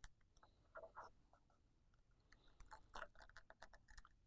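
Faint scraping and small clicks of a plastic opening tool working under an iPhone 7 Plus display to pry it up from the frame, in two short spells.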